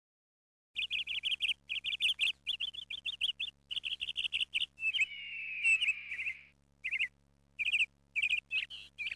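A bird calling: quick runs of short, sharp high notes, broken by one longer, harsh call about five seconds in, then a few more short runs.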